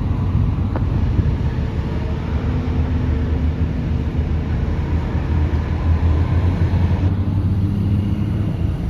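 Truck engine droning steadily with road noise, heard from inside the cab while driving.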